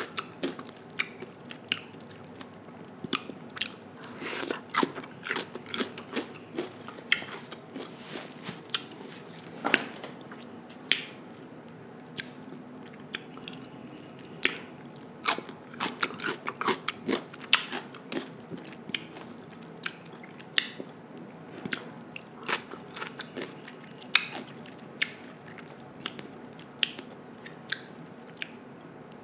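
Close-miked chewing of crisp marinated cucumber slices: irregular sharp crunches, often several in quick clusters, over wet chewing.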